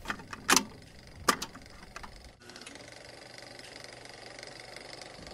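Television static sound effect: two sharp crackling clicks about half a second and a second and a half in, then a steady hiss of static with faint, fast ticking in it.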